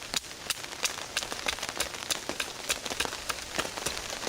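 Rain falling on a tarp just over the microphone: a steady patter with many irregular sharp drop ticks, several a second.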